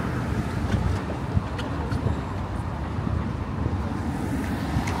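Steady city street traffic noise, a constant low rumble of passing vehicles, with a few faint ticks.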